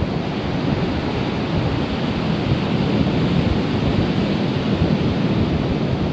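Steady, loud rushing noise of wind buffeting the microphone over churning sea water, heard from the deck of a moving ferry.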